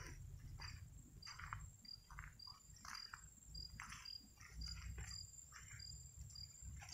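Insects calling: a steady high buzz with a short, high chirp repeating about twice a second. Soft, irregular crunching and rustling, like footsteps through grass and dry palm fronds, runs underneath.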